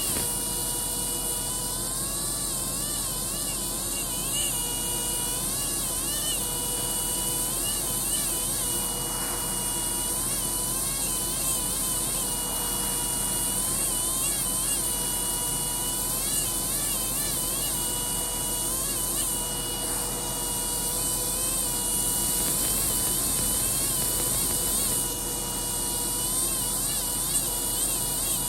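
Pneumatic air scribe buzzing steadily as it chips stone away from a fossil ammonite, its whine dipping and wavering now and then as the tip bites, over a constant hiss of air.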